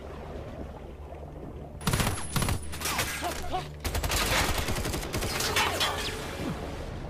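Gunfire: a few loud shots about two seconds in, then a dense burst of rapid automatic fire lasting about two seconds, over a low steady drone.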